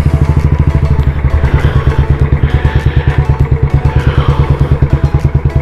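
Motorcycle engine running at low road speed, heard from the rider's seat, with a steady, rapid low beat from its exhaust.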